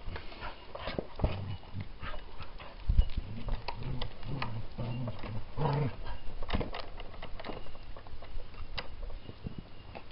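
Hand-cranked winch on a wooden toy dump truck being wound to tip the dump bed: a string of sharp clicks with short low creaks as the wooden parts take the load.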